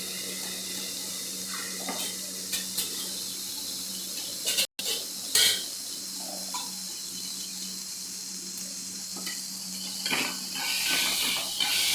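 Onion and tomato masala sizzling gently in a pan after turmeric powder is added, with a few sharp clinks of a spoon against the pan and more clattering near the end.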